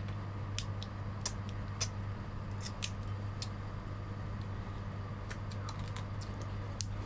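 Eating tamarind-fried crab by hand: many small sharp clicks and cracks of crab shell being picked apart, with sucking and lip-smacking, over a steady low hum.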